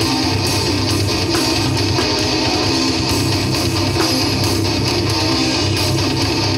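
Live band playing heavy rock: loud, strummed electric guitars over bass and drums, steady throughout.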